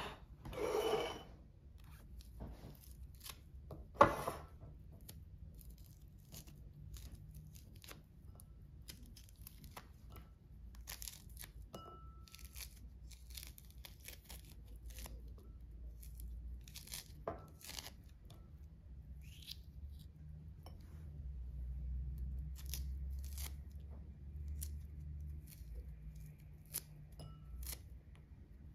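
Tangerine peel being torn off by hand: a long run of short tearing and crackling sounds. There is a brief louder scrape at the start and a single sharp knock about four seconds in.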